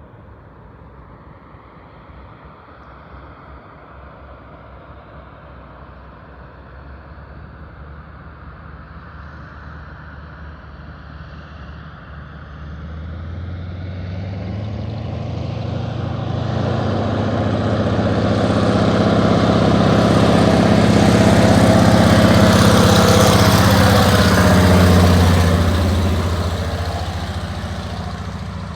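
A light floatplane's piston engine and propeller running, growing louder as it approaches. It passes close, loudest for several seconds in the second half, then fades away.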